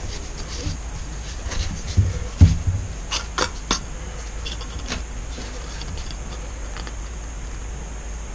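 Paint bottles and cups being handled on a work surface: a few dull thumps about two seconds in, then a quick run of sharp plastic clicks, over a steady low hum.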